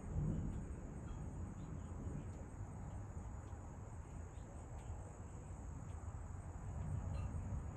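Insects chirring in a steady high trill, over a low rumble of distant thunder that dies away in the first second and swells again near the end.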